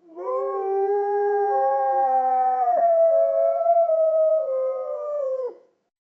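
Wolves howling, several long steady notes at different pitches overlapping, with a short dip in pitch near the middle. The howl lasts about five and a half seconds, then stops.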